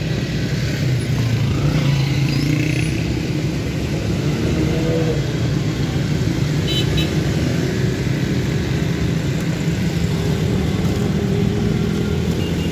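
Steady road traffic noise: vehicle engines running past.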